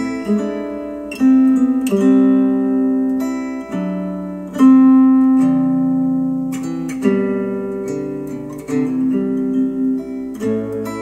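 Instrumental acoustic guitar music, chords strummed every second or two with plucked notes ringing on, played back through Polk Audio XT15 bookshelf speakers.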